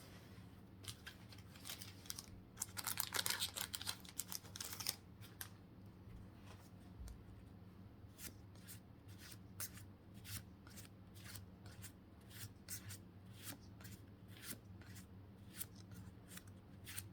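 Faint paper handling of Pokémon trading cards: a few seconds of crinkly rustling, then soft flicks about twice a second as cards are slid one at a time off the stack.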